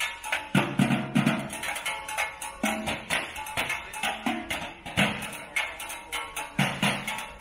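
Metal trash-can drumming: a percussion group beats a fast, busy rhythm with sticks on galvanized trash cans, with deeper, ringing hits every second or two.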